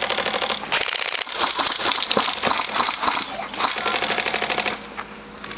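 Airsoft electric guns firing full-auto bursts: a fast, even clatter of shots with a short break about a second in, tailing off near the end.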